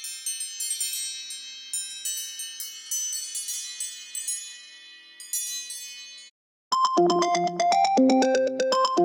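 Two iPhone ringtones in turn. The first is a high, bell-like chime pattern of many struck notes that slowly fades and stops about six seconds in. After a brief gap, a louder, lower-pitched ringtone melody starts, with notes in a quick, steady rhythm.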